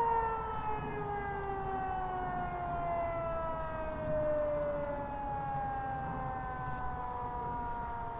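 Motor-driven civil-defence sirens heard from afar, winding down after a steady tone: their pitch slides slowly and evenly downward as the rotors spin down after switch-off.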